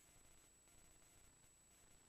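Near silence: a faint hiss with a thin, steady high-pitched tone, and no other sound.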